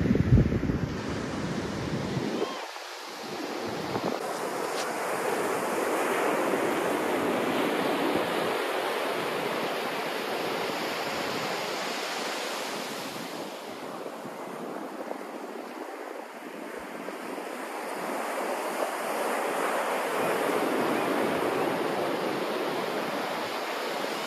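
Sea surf breaking on the beach, the rush of the waves swelling and easing twice. Wind buffets the microphone in the first couple of seconds.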